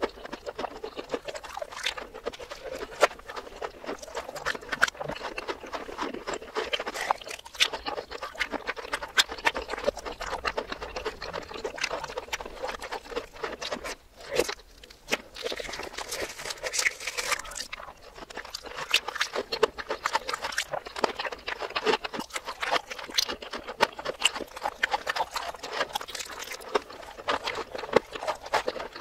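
Close-miked chewing and crunching of breaded fried mozzarella cheese balls, played in reverse: a dense run of crisp crackles and wet mouth clicks, with a brief pause about halfway through.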